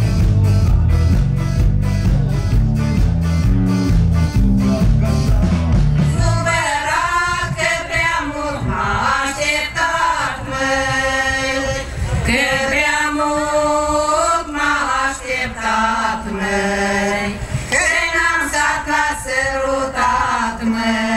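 Song with a steady drum beat and heavy bass. About six seconds in, the bass drops away and singing comes in over lighter accompaniment.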